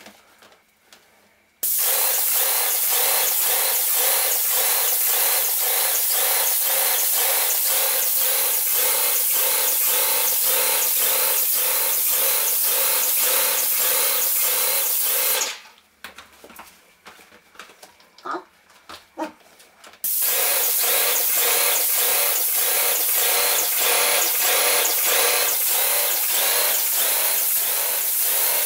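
Wagner Control Pro 250M airless paint sprayer running while spraying paint, a loud hiss with a rapid, even pulse. It stops about fifteen seconds in, leaving a few light knocks, and starts again about five seconds later.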